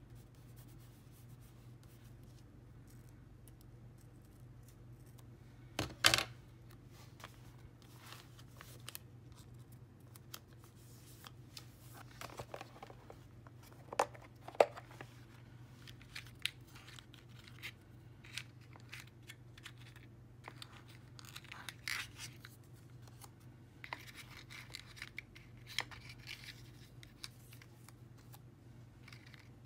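Clear plastic compartment sticker box being handled and opened: scattered sharp clicks and knocks of its plastic, the loudest about a fifth of the way in and a close pair near the middle, with light rustling of the paper stickers in its compartments near the end.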